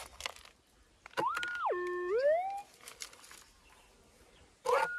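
An electronic tone that rises, holds high, drops low and slides back up, heard twice in the same shape, after a few faint scraping clicks.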